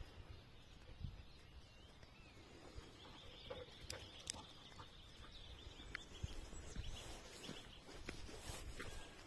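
Faint countryside ambience: a low rumble with a high, thin trill of animal calls from about three to six seconds in, and a few light clicks.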